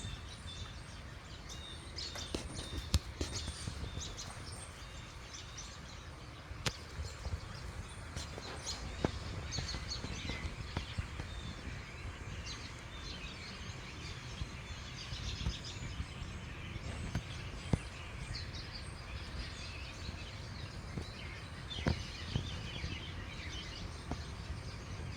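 Many small birds chirping and twittering at once, a busy overlapping chorus of short high calls and trills, over a low outdoor background noise with a few sharp clicks.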